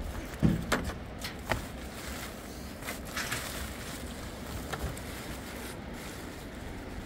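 Wind rumbling on the microphone over the handling of a sack in a plastic basket: a few knocks and taps, the loudest about half a second in, and a brief rustle about three seconds in.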